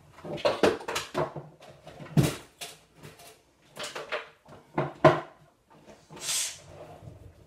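Kitchen items clattering and knocking as they are handled at a counter, in several separate bursts, with a short hiss a little after six seconds.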